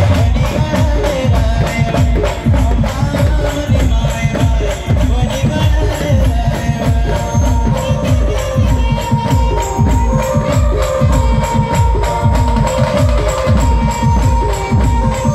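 Band music playing a Marathi folk devotional song, with a fast, dense drum beat, jingling tambourine-like percussion and a sustained melody line over it.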